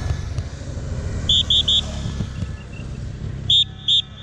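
A motorcycle's engine rumble fades away as it passes. Over it, a whistle is blown in short, shrill blasts: three quick ones about a second in and two more near the end. This is the usual warning that the race riders are about to come through.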